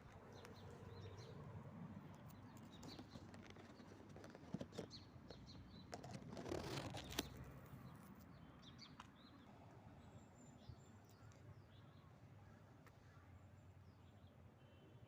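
Faint outdoor ambience with small birds chirping now and then, short high notes scattered throughout. A brief rustling burst comes about six to seven seconds in.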